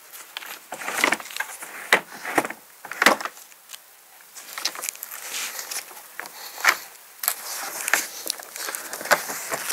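Crolla Nex360 convertible car seat being adjusted and swivelled on its base: a series of plastic clicks and knocks, with rubbing as the seat turns.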